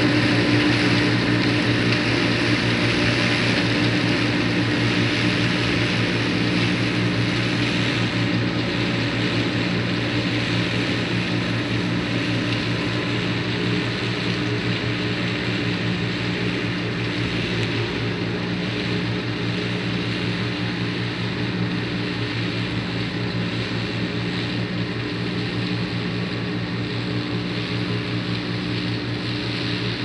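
Diesel engine of farm machinery running steadily at a constant speed, growing gradually quieter.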